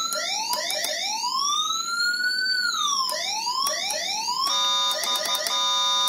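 CJB100BD electronic siren sounding through an ordinary horn speaker. It sweeps up and down in uneven whoops: several quick upward chirps and one long rise and fall. About four and a half seconds in it switches to a steady, blaring horn tone.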